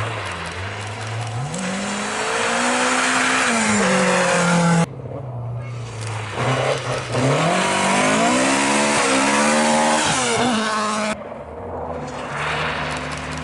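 Rally cars driven hard through a corner on a special stage, heard one after another. Each engine revs up and down through gear changes and lifts. The sound cuts abruptly to the next car about five seconds in and again about eleven seconds in.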